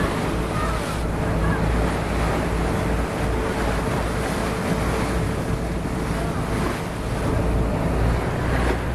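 Bow wave of a moving boat rushing and splashing along the hull, over the steady hum of the boat's engine, with wind buffeting the microphone.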